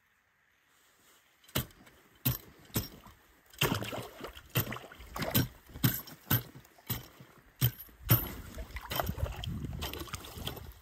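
After about a second and a half of silence, sharp knocks come roughly every half second, with water splashing and sloshing between them. This is work at a water hole in the ice over a submerged beaver trap.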